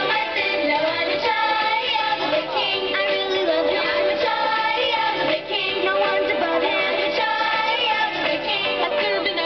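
A Christian children's song plays: singing voices held on long notes over backing music.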